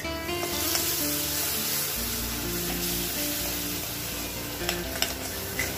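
Thick curd sizzling in hot oil and onion-tomato masala in a steel kadai, hissing up as it goes in and held as it is stirred in fast with a metal spoon. The spoon clicks and scrapes against the pan several times near the end.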